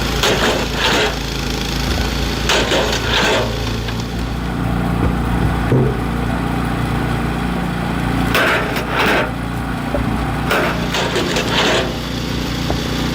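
Homemade engine-driven firewood machine running steadily, with repeated short, loud bursts, mostly in pairs, as it works through wood.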